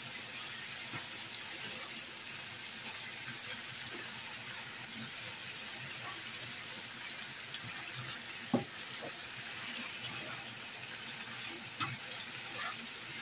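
Pork liver and vegetables stir-frying in a granite-coated pan: a steady sizzle, with a few light knocks of the spatula against the pan, the sharpest about eight and a half seconds in.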